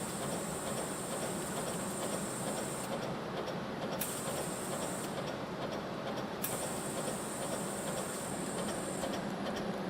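CNC compression spring coiling machine running steadily while coiling fine 0.1 mm wire, a continuous mechanical clatter with a high hiss that switches on and off a few times.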